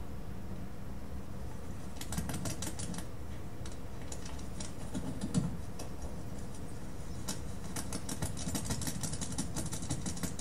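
Runs of rapid, irregular clicking and rustling over a steady hum, starting about two seconds in and densest near the end. It comes from a man's Parkinson's tremor coming back once his deep brain stimulator is switched off, shaking his body and clothing, heard played back over a lecture room's speakers.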